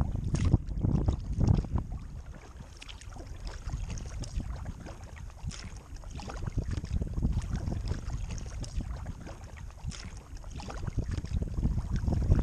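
Kayak paddle strokes dipping and splashing beside the hull as it moves through choppy water, with wind rumbling on the microphone. The splashing is louder in the first couple of seconds and again near the end.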